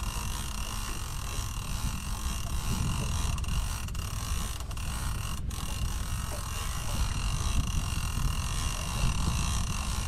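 Fishing reel winding in line against a hooked fish, a mechanical whirring, over a steady low rumble.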